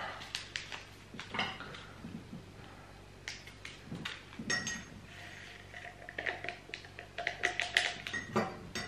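Small clicks and crinkles as an instant coffee packet is handled and opened, then a metal spoon tapping and clinking against a cup, the taps coming thick and fast near the end.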